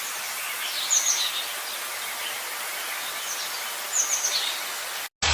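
Steady outdoor hiss with a small bird calling twice, each call a quick run of high, falling chirps, about a second in and again about four seconds in. The sound cuts off suddenly near the end.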